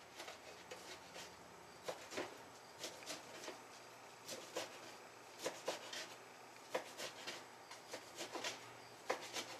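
Knife chopping raw bacon on a cutting board: faint, irregular taps of the blade striking the board, about two a second.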